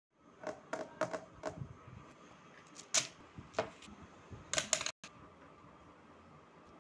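Handling noise of hands on drawing paper and a paintbrush: a quick run of light taps and clicks, a louder click about three seconds in and another cluster just before five seconds. Then the sound cuts out for an instant, leaving a faint steady hiss.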